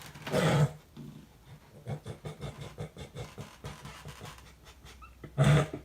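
A dog panting in quick, soft breaths, with two louder bursts, one just after the start and one near the end.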